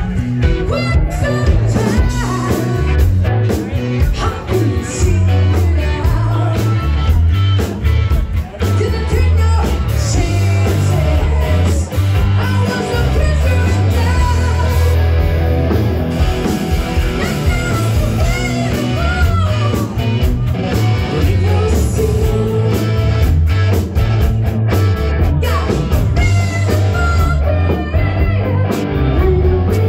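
Live rock band playing: a woman singing lead over electric guitars, bass guitar and a drum kit, with a steady driving beat.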